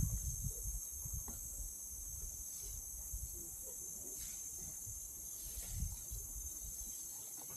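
A steady, high-pitched insect chorus, likely crickets or cicadas, with irregular low rumbles underneath.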